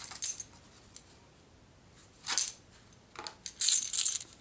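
Handful of 90% silver Washington quarters clinking and jingling together in the hands as a roll is tipped out. It comes in three short bursts: one at the very start, one about two seconds in, and the longest near the end.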